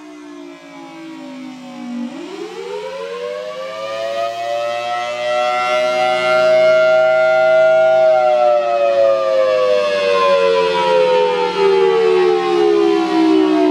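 Outdoor warning siren sounding the attack wail. Its pitch bottoms out about two seconds in, climbs for roughly six seconds to a peak, then slowly falls again, growing louder during the climb.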